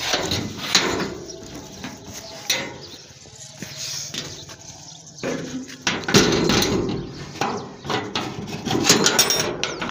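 Steel gate being closed and its barrel bolt worked: a run of metal clanks, knocks and scrapes.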